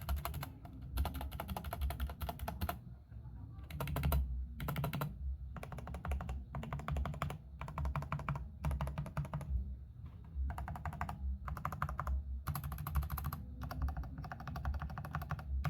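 Rakk ILIS mechanical keyboard with red linear switches being typed on in fast runs of keystrokes with short pauses. The keys give a clacky sound with some pinging, and the stabilized larger keys sound rattly.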